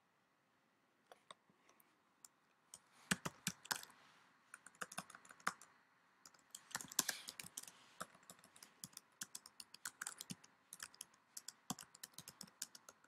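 Typing on a computer keyboard: irregular runs of quick key clicks with short pauses, starting about a second in.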